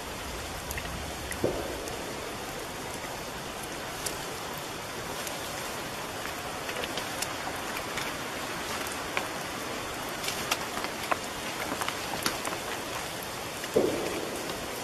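Steady rain-like hiss with scattered small clicks, and two dull distant knocks, one about a second and a half in and a stronger one near the end. The knocks are what the listeners take for huge rocks being smashed together on the mountain.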